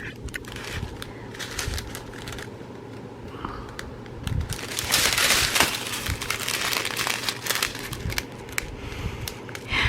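Plastic packaging crinkling and rustling as it is handled, in irregular crackly bursts, busiest around the middle.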